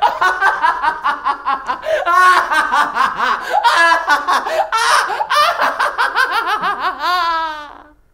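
A man's loud villainous laugh: a fast, unbroken run of 'ha-ha' pulses that ends in a long drawn-out note, falling in pitch and fading away just before the end.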